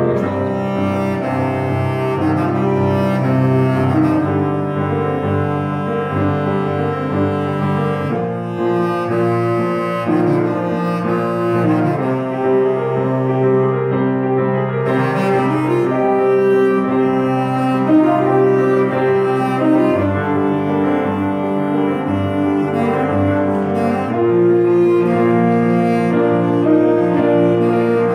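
Bass clarinet and Steinway grand piano playing together: the bass clarinet holds long low melody notes over the piano's chords.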